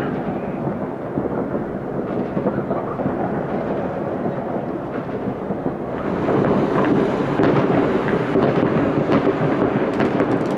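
Many distant fireworks going off at once: a dense, continuous rumble of bangs and crackles that grows louder and busier about six seconds in.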